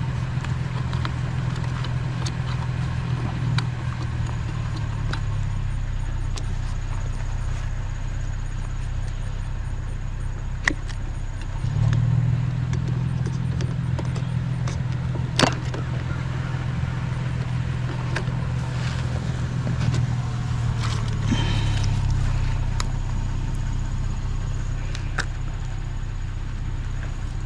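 Vehicle engine and road noise heard from inside while driving, a steady low hum that rises in level about twelve seconds in and eases near the end, with a few sharp rattles or clicks.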